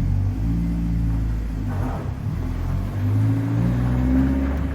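BMW E30's engine pulling under acceleration on a test drive: its pitch rises, eases off about two seconds in, then climbs again.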